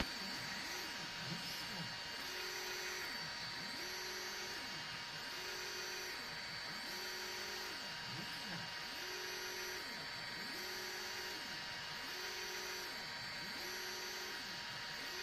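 EasyThreed K10 mini 3D printer's stepper motors whirring as the print head moves back and forth. The pitch rises, holds and falls again about every second and a half, over a steady fan hiss.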